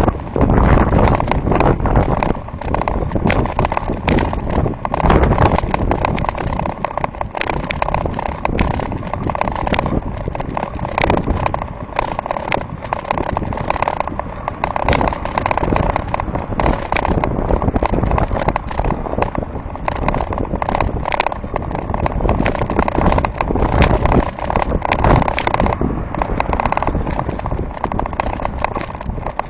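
Riding a bicycle, heard from a camera mounted on the handlebars: a steady low rumble of wind on the microphone and road noise, with frequent sharp clicks and rattles throughout.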